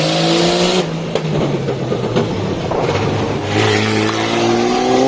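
Off-road competition vehicle's engine revving hard under load. It holds steady at first, turns rougher and noisier in the middle, then climbs in pitch again near the end.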